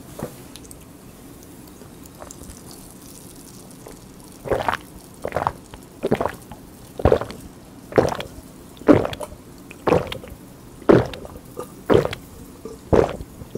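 Close-miked gulping as a glass of Coca-Cola is drunk down: after about four seconds of quiet, about ten loud swallows follow one another a little under a second apart.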